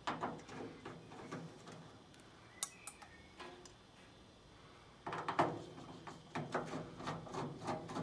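Screwdriver working a screw in a washing machine's sheet-metal cabinet: small metallic clicks and scrapes, with a denser run of them starting about five seconds in.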